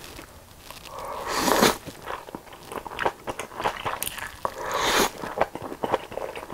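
Close-miked slurping and chewing of japchae glass noodles: a loud slurp about a second in and another near five seconds, with quick mouth clicks of chewing between and after.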